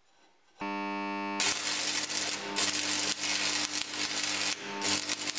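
Wire-feed welder tacking a steel rod to a steel plate: the arc crackles and spits in several stretches, starting about a second and a half in, with short breaks between tacks. A steady hum runs underneath from about half a second in.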